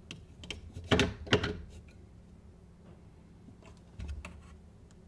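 Fletching jig and its vane clamp being handled: a string of sharp clicks and knocks, the two loudest about a second in, then a duller knock about four seconds in as the clamp is set back on the arrow.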